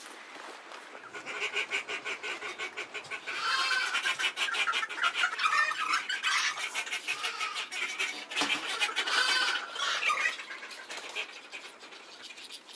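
A group of farmyard fowl calling: a fast, dense run of repeated calls that starts about a second in, is loudest in the middle and eases off near the end.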